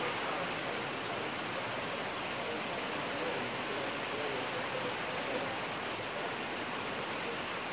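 Steady rain falling on garden conifers, shrubs and lawn: an even hiss of drops.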